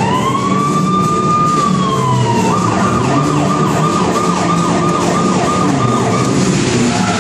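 Police siren wailing: it rises fast, holds, and falls away, then switches to a fast yelp of about three sweeps a second that stops shortly before the end.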